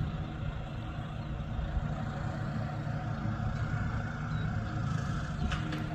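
An engine running at a steady idle-like hum. A few light clicks come near the end.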